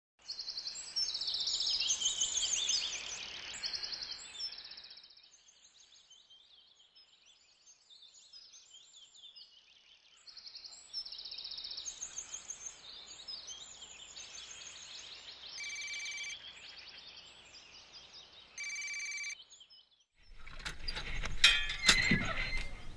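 Birds chirping and trilling, busiest in the first few seconds. Two short steady ringing tones come in later, the second a little longer. Near the end a wooden door rattles and creaks open with a few knocks.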